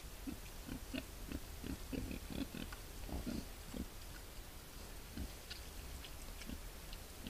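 Male wild boar grunting: a quick run of short, low grunts over the first four seconds, then a few single grunts.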